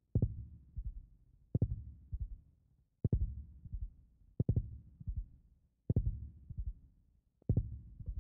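A slow heartbeat, a low thudding beat followed by softer thumps, repeating about every second and a half.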